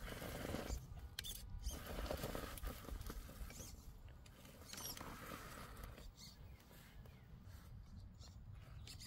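Faint, irregular scratching and clicking of a custom Axial Capra RC rock crawler's tyres and chassis scrabbling over rock and dry leaves as it climbs a steep rock face.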